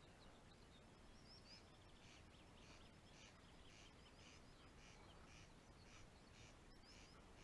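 Faint birdsong in a quiet riverside dawn: short high calls repeating about twice a second, with a few chirps, over faint background hiss.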